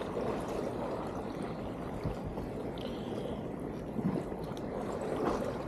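Rough sea water washing and sloshing against breakwater rocks: a steady rushing noise that swells slightly about four seconds in and again near the end.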